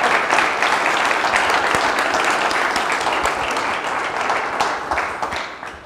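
Audience applauding steadily, thinning out near the end.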